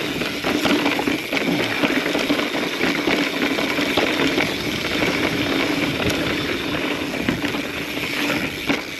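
Mountain bike rolling fast over sandstone slickrock. The tyres make a continuous rushing noise, and the chain and frame rattle with many small knocks, over a steady buzzing hum.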